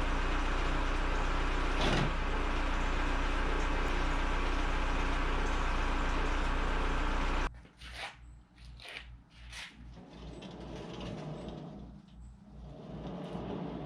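Backhoe engine running steadily, loud and close, cutting off suddenly about seven and a half seconds in; then a quieter, evenly pulsing engine sound with scattered clicks and knocks.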